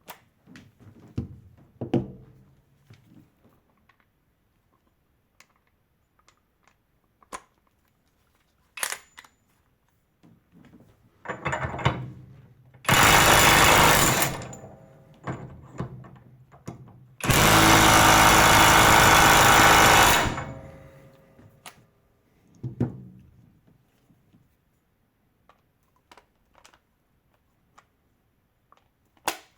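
12V cordless impact wrench hammering on a bolt in two bursts, the first about a second and a half long and the second about three seconds, as the bolt is driven tight and broken loose. Short clicks and knocks of the tools and bolt being handled come before and after.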